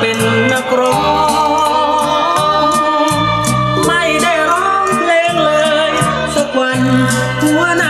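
Thai song played back through Celestion SL6si loudspeakers driven by a tube amplifier: a melodic lead over a moving bass line, with a steady rhythm of high percussion ticks.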